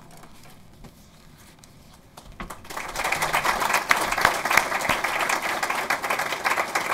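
Audience applauding. The room is quiet for the first two and a half seconds, then the clapping starts and carries on as dense, steady applause.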